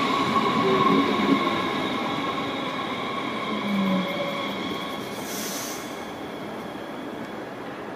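DB Class 430 electric multiple unit braking to a stop: steady high-pitched squealing tones from the train fade away over about six seconds, with a short hiss about five and a half seconds in.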